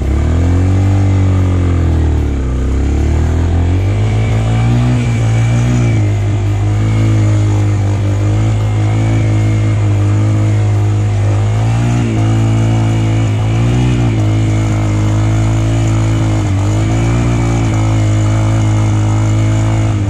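Motorcycle engine running under way, its pitch rising and falling again and again as the throttle opens and closes and the gears change.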